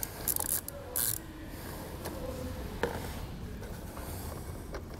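Ratchet wrench with a 12 mm socket loosening a nut on a car battery terminal stud: two short bursts of ratchet clicking in the first second and a half, then a single knock about three seconds in.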